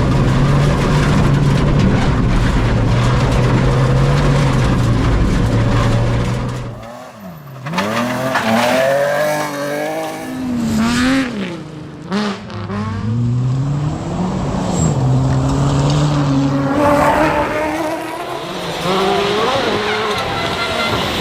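Rally car engines at full stage pace. For the first several seconds one engine holds steady high revs. After a sudden cut about seven seconds in, an engine revs up and down in quick sweeps through gear changes and lifts, with tyre noise on the loose surface.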